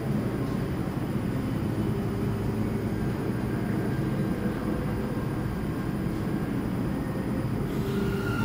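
R179 subway train standing at an underground platform, giving a steady low rumble and hum. Near the end a rising electric whine begins as its propulsion starts to pull it out.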